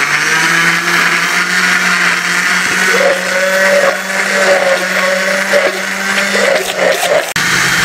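Electric blender motor running at full speed, grinding peeled ginger in cooking oil into a paste; a steady whirring hum with a churning grind, dipping sharply for a moment near the end.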